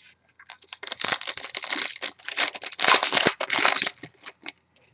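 Trading-card pack wrapper being torn open and crinkled: a dense crackling and ripping for about three seconds.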